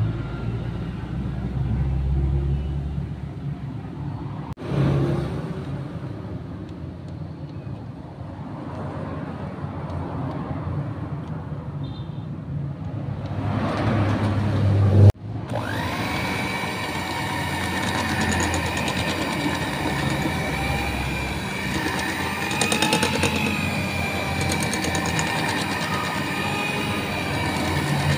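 Philips electric hand mixer running, its beaters working flour into whipped egg batter in a glass bowl. A low rumble gives way, with an abrupt change about halfway through, to a louder motor whine whose pitch wavers slightly.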